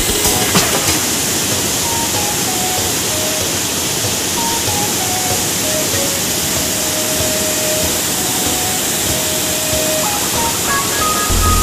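Steady rushing of a waterfall plunging into a pool, with soft background music over it: a slow melody of single held notes, and a low beat that comes in near the end.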